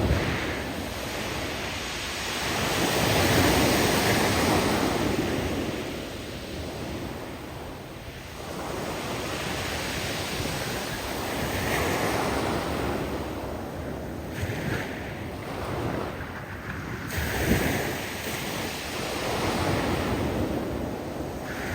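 Surf breaking on a steep shore of loose rocks, the waves surging in and drawing back every several seconds. As each wave recedes, the loose stones tumbling in the backwash make a long hiss.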